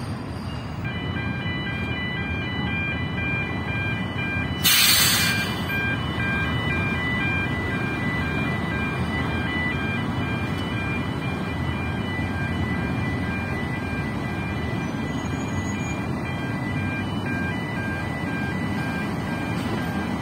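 Blue Star Naxos ferry's engines and propellers running with a steady rumble as the wash churns the harbour water, while a high multi-tone warning signal beeps on and off as the stern ramp lifts. A brief loud hiss cuts in about five seconds in.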